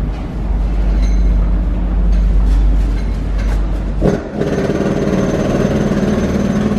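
Train running on the railway bridge directly overhead, heard as a steady deep hum inside the concrete underpass, then a louder, rapidly clattering rumble starting about four seconds in as more cars cross above.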